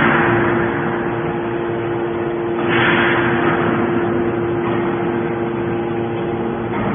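Gasoline engine of a scrap metal baler running steadily with an even hum, with a louder rush of noise lasting about a second, about three seconds in.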